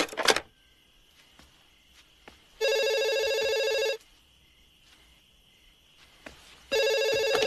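Telephone ringing: two rings about four seconds apart, each about a second and a half long, the second running on past the end. It is the call back to the same wrong number. A short loud noise comes right at the start.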